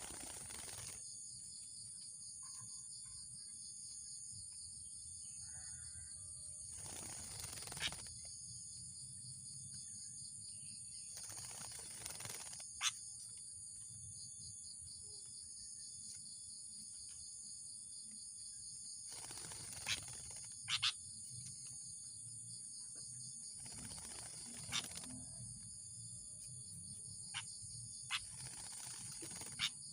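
Steady high-pitched insect chorus of crickets or cicadas, with about eight brief, sharp chirps scattered through it, two close together past the middle. A soft rushing swell rises and fades every few seconds.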